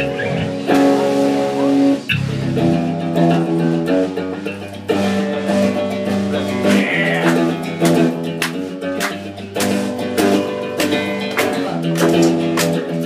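Live hardcore band playing: electric guitar chords ringing over drums and cymbal crashes, the drum hits coming thicker from about five seconds in.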